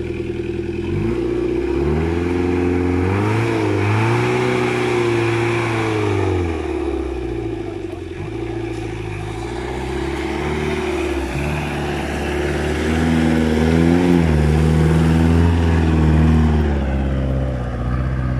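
Old flat-fender jeep's engine revving up and down under load as it climbs a muddy, rutted track. The revs rise sharply about a second in, swing up and down a few seconds later, climb again near the end of the climb, then drop away.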